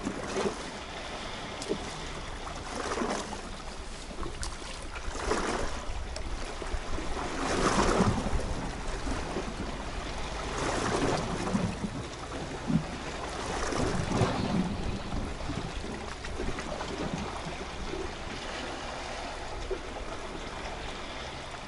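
Small sea waves washing against shore rocks, swelling in surges every two to three seconds, over a low steady rumble of wind on the microphone.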